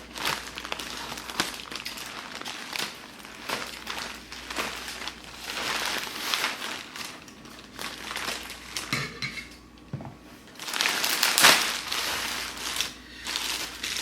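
Packaging crinkling and rustling as a parcel of charms is opened by hand, with irregular crackles throughout, loudest about eleven seconds in.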